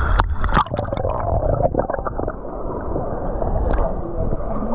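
Rough sea water sloshing and splashing right at the microphone, with a few sharp splashes in the first second, then a dull, muffled churning.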